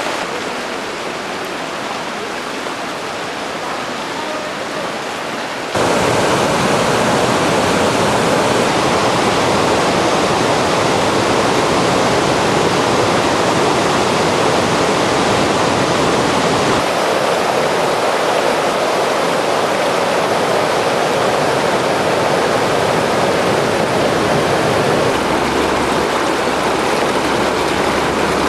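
Steady rushing noise of floodwater and rain, jumping louder about six seconds in and shifting in tone at a couple of later cuts.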